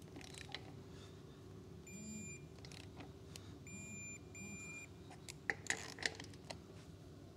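Digital torque wrench beeping as a wheel lug nut reaches its set torque of 80 foot-pounds, its handle buzzing under the beeps: one longer beep about two seconds in, then two short beeps around four seconds. A few sharp clicks follow as the socket is moved onto the next lug nut.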